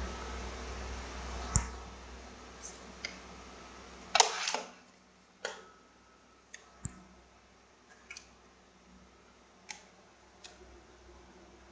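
Scattered sharp clicks from working a laptop, about ten of them at uneven intervals, the loudest a short clatter a little past four seconds in. A low rumble in the first few seconds dies away.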